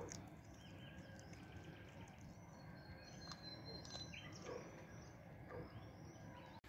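Faint birdsong: scattered small chirps, with a thin high whistle about three to four seconds in, over a quiet hazy background with a few faint clicks.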